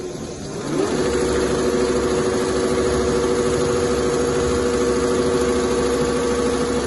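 Richpeace two-head CNC sewing machine stitching quilted leather. Its drive rises in pitch as it speeds up about a second in, runs at a steady whirring hum, then winds down at the end.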